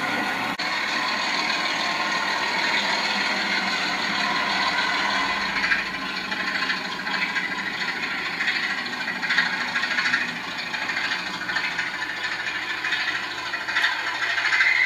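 Bachmann Class 25 00 gauge model diesel locomotive running with its DCC sound decoder playing the diesel engine sound through the model's small speaker, along with a light rattle of the model moving on the track.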